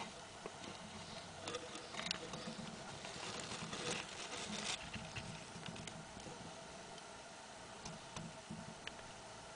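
Soft close-up rustling and light scraping clicks over a faint steady hum, thickest from about one and a half to five seconds in, then dying down to scattered ticks.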